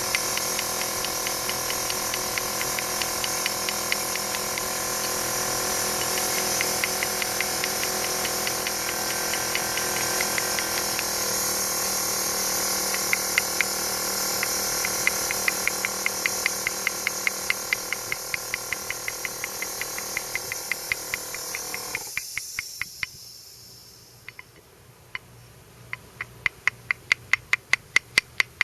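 A cleaning wand steadily hissing water spray onto stained limestone, with a pump ticking evenly, about four clicks a second. The spray cuts off about 23 seconds in and the pump's ticking carries on alone.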